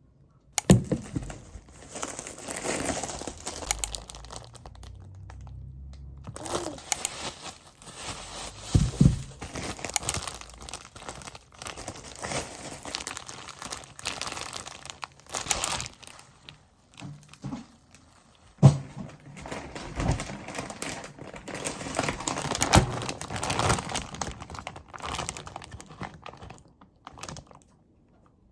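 Packaging crinkling and rustling as it is handled, with occasional knocks.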